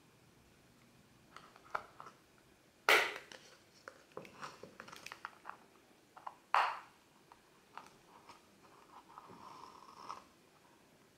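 A small knife blade being forced into and cutting through a hard plastic screw cap: scattered crunching cracks and clicks as the plastic gives, the two loudest about three seconds in and six and a half seconds in, and a short scrape near the end.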